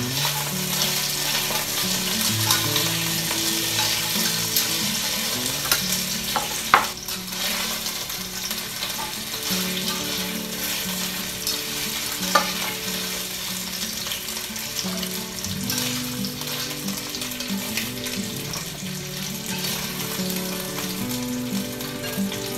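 Baby carrots sizzling steadily in hot olive oil in an enameled cast-iron Dutch oven as they are stirred and turned with a fork to brown, with a few sharp clinks of the fork against the pot.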